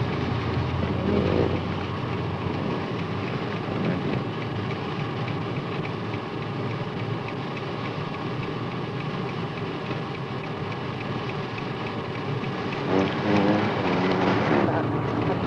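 Steady road and engine noise from inside a moving car: an even, unbroken hiss and rumble.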